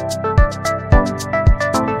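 Electronic background music with a steady kick-drum beat, a little under two beats a second, with crisp high percussion and synth melody notes.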